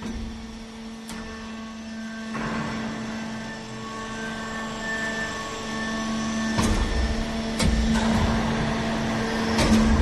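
Steady electric motor hum of the hemp baler's power unit running at a fixed pitch, growing louder, with plastic-bag rustling and a few sharp knocks as the bagged hemp bale is handled.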